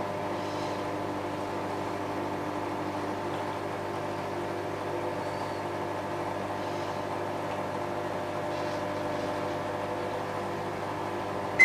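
Microwave oven running at full power in the last seconds of its heating cycle: a steady hum with a stack of fixed tones that holds unchanged.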